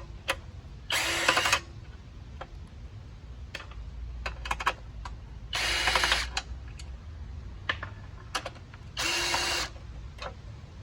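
Three short bursts of a tool with a fast ratcheting rattle, each under a second, one after another, as the three bolts holding a Predator 212 engine's pull-start to its shroud are backed out. Scattered small clicks of handling between them.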